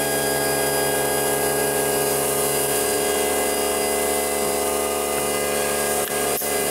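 Greenworks battery-powered backpack leaf blower running steadily. Its electric fan motor gives a steady whine over the rush of air from the blower tube, with two brief dips in level about six seconds in.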